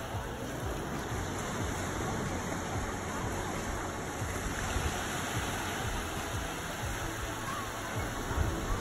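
Small waves breaking and washing up on a sandy shore, a steady rushing, with wind rumbling on the microphone.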